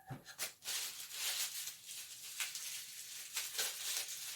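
Antique padlock parts being handled: irregular light metal clicks and scraping, rattling noise as the pieces are moved and fitted together, with a couple of sharper clicks at the start and a pair around three and a half seconds in.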